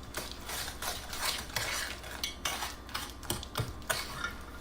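A utensil stirring and scraping around a saucepan of butter and brown sugar melting on the stove, in quick, irregular strokes.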